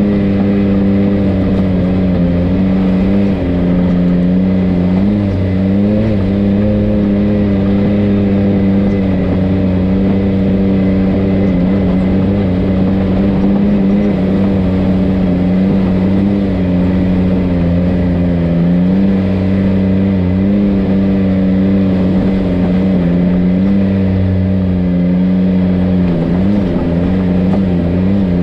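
Side-by-side UTV engine running steadily on a trail, its pitch rising and falling a little with the throttle, dipping briefly near the end.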